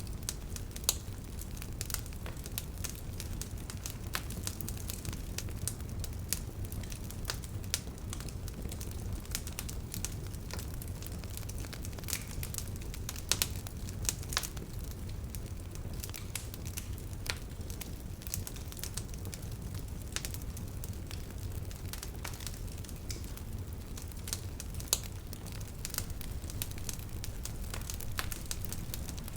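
Wood fire burning with irregular crackles and sharp pops over a steady low rumble, a few pops louder than the rest.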